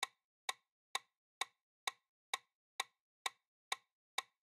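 Clock-like countdown ticking sound effect: sharp, evenly spaced ticks, about two a second, counting down the time allowed to answer a quiz question.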